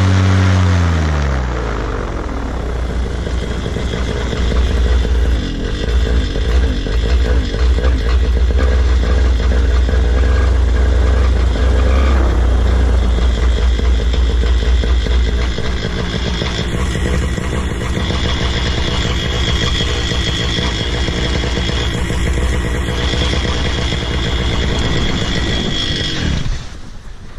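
Paramotor engine dropping from high revs to a lower, rougher run within the first two seconds, then running on unevenly; the sound cuts off abruptly near the end. The pilot believes its carburettor is set too lean.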